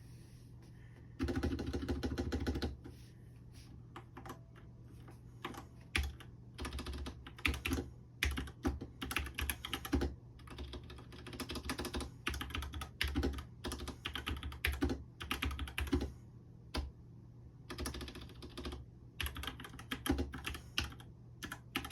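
Tecware Spectre Pro mechanical keyboard being typed on: a dense flurry of keystrokes about a second in, then bursts of quick key clacks with short pauses between them.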